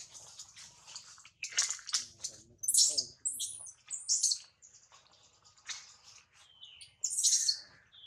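Newborn long-tailed macaque giving a string of short, shrill, bird-like cries, loudest about three and seven seconds in: a baby calling for its mother.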